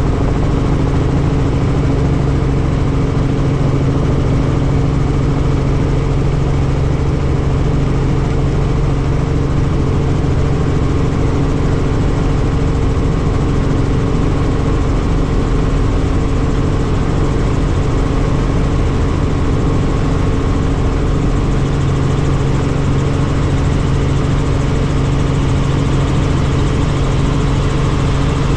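Helicopter in flight: a steady engine and rotor drone with an unchanging low hum.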